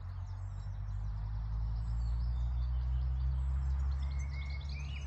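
Small birds chirping and twittering, among them a chiffchaff calling as it carries nest material, with a whistled note a little after four seconds in, over a steady low rumble.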